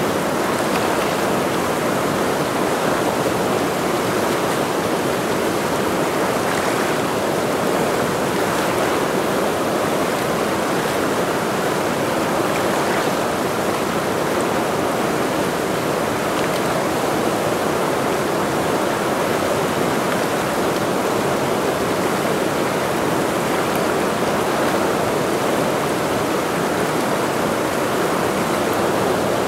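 Mountain river water rushing with a steady, unbroken roar.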